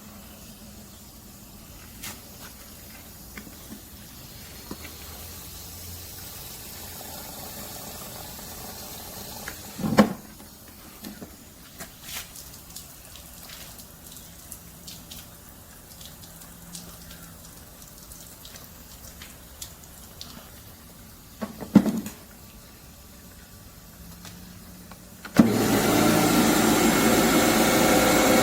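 Quiet handling sounds with scattered clicks and two sharp thumps, then near the end the Karcher K 2 electric pressure washer's motor and pump start suddenly and run loud and steady.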